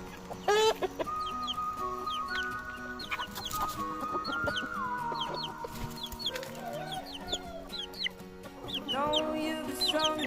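Chickens clucking, with a rooster giving a long drawn-out crow that drops in pitch at its end, and short high chirps throughout.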